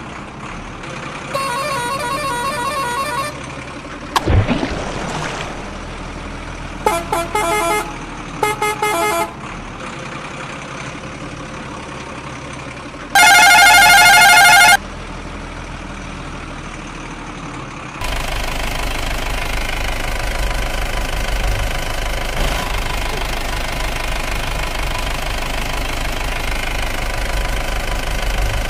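A vehicle horn sounds several times, in short toots and one loud long blast about halfway through, with a thump about four seconds in. In the last ten seconds a truck engine runs steadily while it splashes through water.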